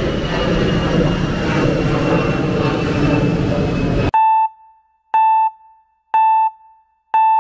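Steady street ambience on a flooded street, a constant wash of noise. About four seconds in it cuts off abruptly, and a clear electronic ding sounds four times, about once a second, each ring fading quickly.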